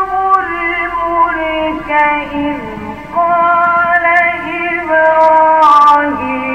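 A man's voice reciting the Quran in the melodic mujawwad style, holding long ornamented notes that step and glide in pitch, with a new, louder phrase starting about three seconds in.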